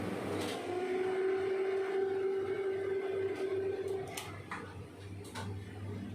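Low electrical hum with a steady held tone for about three and a half seconds, then a few light clicks.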